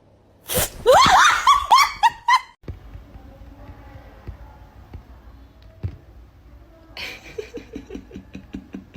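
A person laughing hard in short, high-pitched peals for about two seconds. A quieter run of quick, short pulses follows near the end.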